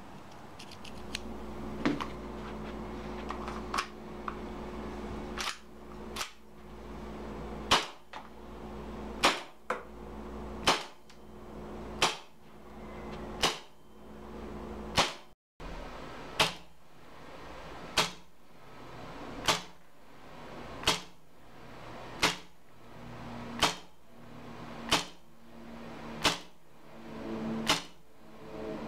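Western Arms 1911 gas blowback airsoft pistol firing, each shot a sharp crack as the slide cycles back, about one every second and a half. A few lighter clicks come first.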